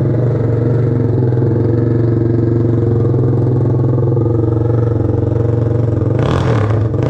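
ATV engine idling steadily through an aftermarket exhaust, with a short burst of clattering noise about six seconds in.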